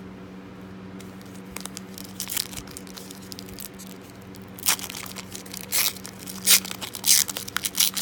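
A trading-card pack wrapper being torn open and crinkled: a run of sharp crackling rips that grow louder in the second half.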